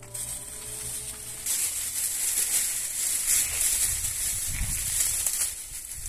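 A plastic bag rustling and crinkling as a hand rummages in it and pulls out fresh green fodder. The rustle starts about one and a half seconds in and dies down near the end.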